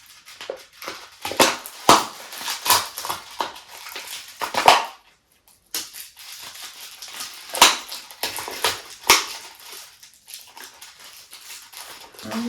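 Plastic cling wrap on a food delivery package being crinkled, pulled and torn in irregular crackling bursts as it is worked open; it is wrapped very tightly.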